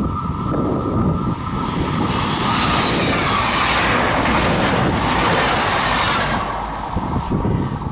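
Locomotive-hauled passenger train passing close by: a rushing noise of wheels on rails that builds about two seconds in, stays loud as the coaches go past, and falls away about six and a half seconds in as the locomotive at the tail passes.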